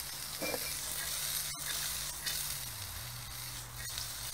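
Vegetables and bean sprouts sizzling steadily in a wok as they are stir-fried over a gas wok burner. A low steady hum runs underneath and drops slightly in pitch about halfway through.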